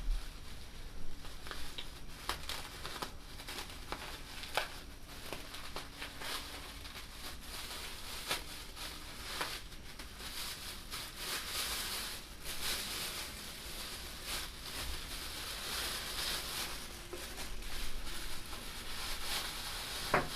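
Packaging being unwrapped by hand: wrapping crinkling and rustling in irregular spurts, with scattered light clicks and taps.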